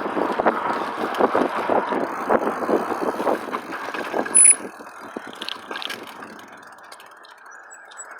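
Footsteps crunching and rustling through dry brush, irregular and loud, ending in a sharp click about four and a half seconds in; after that, only a quieter steady hiss with a few faint ticks.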